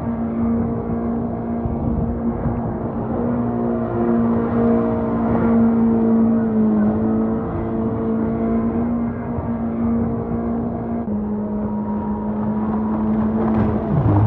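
Corvette-bodied jet boat's engine and jet drive running at a steady high speed, a constant droning whine that drops slightly in pitch about eleven seconds in.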